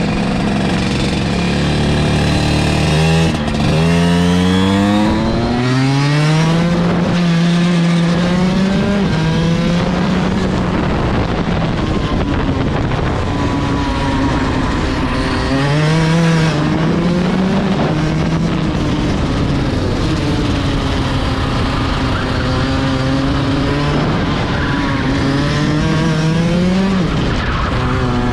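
Rotax 125 DD2 EVO two-stroke kart engine heard from onboard, pulling hard on track. Its note climbs steeply over the first few seconds, drops sharply about five and a half seconds in, then rises and falls again and again through the corners.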